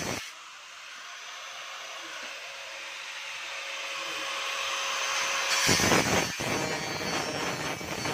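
Angle grinder with a cutting disc grinding a slot into an aluminium door frame. About a second in the sound drops and thins, then builds steadily, and the full grinding noise returns loudly about six seconds in.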